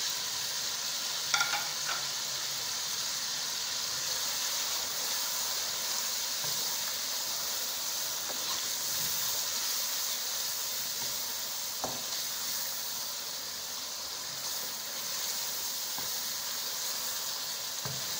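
Chicken and tomato masala sizzling steadily as it fries in a nonstick wok and is stirred with a wooden spoon, with a few light knocks of the spoon against the pan.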